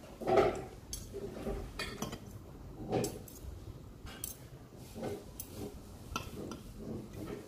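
Metal spoon and fork clinking and scraping against a plate while eating noodles: scattered sharp clicks, a few each second, irregularly spaced.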